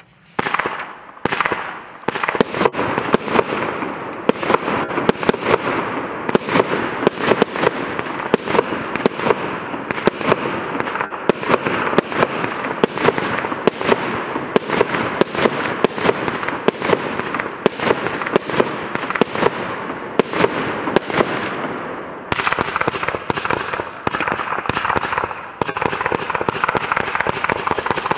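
A 91-shot, 30 mm consumer fireworks cake firing rapid sharp shots, several a second, over a continuous crackle. About 22 seconds in the crackling grows denser.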